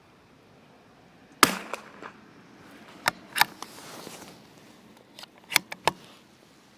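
A single .22LR shot from a CZ 457 Varmint bolt-action rifle, sharp and short with a brief ring after it, about one and a half seconds in. Several lighter clicks and knocks follow over the next few seconds.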